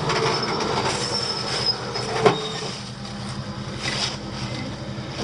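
Jeep Wrangler engine running low during a vehicle recovery over rocks, with high thin squeals and creaks in the first two seconds and one sharp knock a little over two seconds in.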